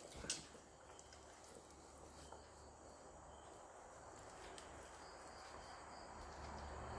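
Near silence with faint background hiss. A single brief knock about a third of a second in comes from the raw chicken and knife being handled on a wooden cutting board.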